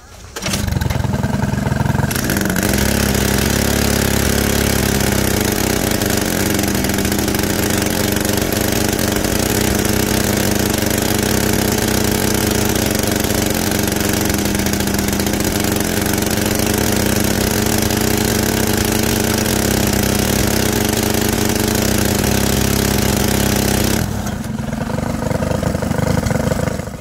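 Mini bike's small gasoline engine starting and then running steadily, the wheel spinning free while the bike is propped up. About three seconds before the end it drops to a lower, quieter run.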